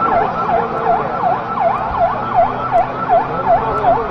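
An emergency-vehicle siren sounding a fast repeating dip-and-rise, about two and a half sweeps a second, over a steady low hum.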